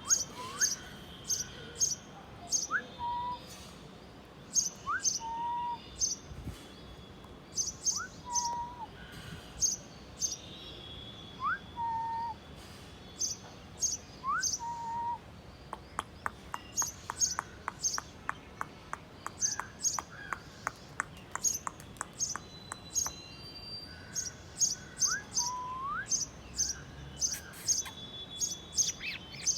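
Sparrows chirping over and over in quick clusters of two or three high chirps. A lower whistle that rises and then levels off repeats every couple of seconds, and a run of quick, evenly spaced ticks comes in the middle.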